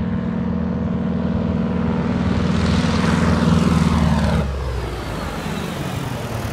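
Howard DGA's radial engine at takeoff power, growing louder as the plane climbs toward and over the camera, then cutting out abruptly about four and a half seconds in: the engine quitting on takeoff. A falling whoosh of the passing plane is left.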